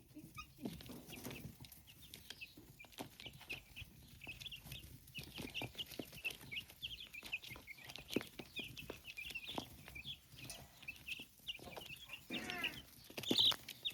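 A flock of baby chicks cheeping continuously in quick, short high peeps, over many small clicks and taps, with a louder burst of peeping near the end.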